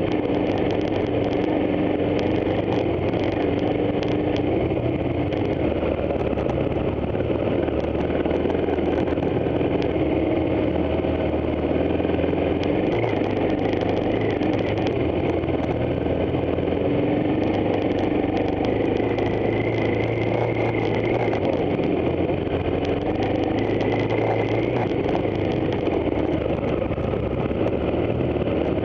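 Motorcycle engine running steadily at low speed on a rough grassy trail, its pitch rising and falling a little with the throttle, with frequent rattling clicks from the bike over the bumps.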